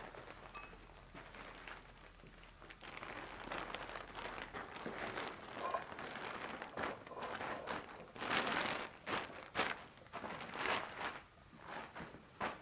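Plastic bag rustling and crinkling as fresh herbs are handled, in irregular bursts that grow from about three seconds in and are loudest about eight seconds in.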